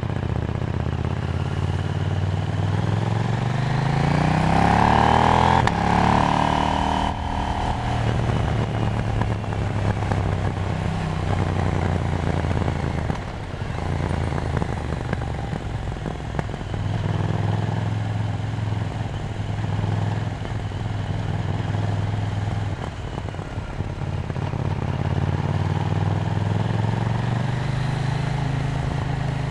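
KTM 790 Duke's parallel-twin engine pulling hard, its pitch rising steeply for a few seconds, then dropping about seven seconds in as the throttle eases or a gear changes. It then runs at a fairly steady speed with a few brief throttle changes, and climbs again near the end.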